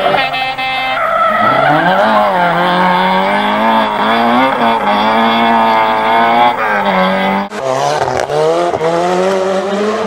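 Rally car engine revving hard, its pitch rising and falling repeatedly with throttle and gear changes. The sound changes abruptly about seven and a half seconds in.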